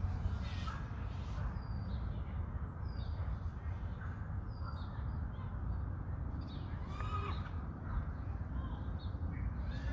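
Birds calling repeatedly in short chirps, with a stronger, harsher call about seven seconds in, over a steady low rumble of wind on the microphone.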